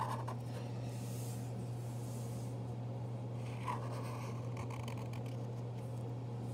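A black marker scratching across paper in a few drawing strokes, over a steady low hum.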